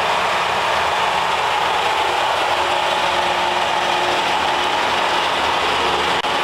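Mobile transformer-oil purification and degassing unit running: a steady, even machine noise with a low hum beneath it.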